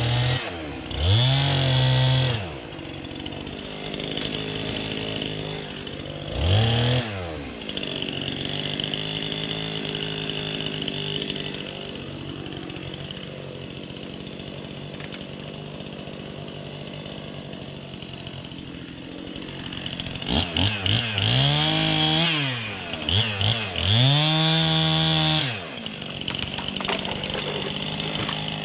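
Two-stroke chainsaw idling between throttle blips and revs while a tree is cut to be felled: a rev about a second in, a short one near seven seconds, then several quick blips and two longer full revs toward the end.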